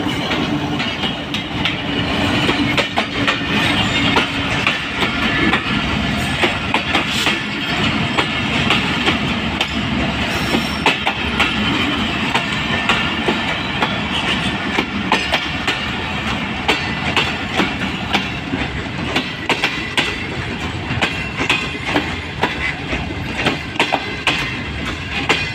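A Pakistan Railways passenger train passing close by: a GE GEU40 diesel-electric locomotive at the start, then a long run of coaches with a steady wheel rumble and frequent sharp clacks of the wheels over the rail joints.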